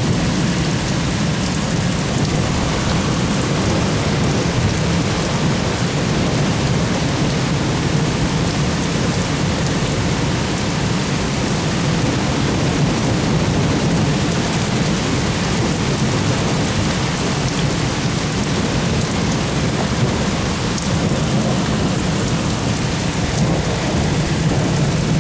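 Heavy rain pouring down steadily in a thunderstorm, with a low, steady rumble underneath.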